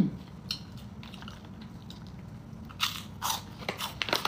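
Crunching and chewing of a pineapple biscuit close to the microphone, with a few sharper crunches about three seconds in and again near the end.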